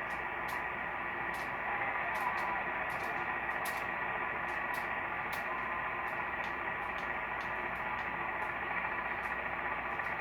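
Steady hiss of static from a portable software-defined radio receiver tuned to an empty CB channel on AM, with faint brief whistles and irregular crackling clicks. It is band noise with no one transmitting, in poor conditions.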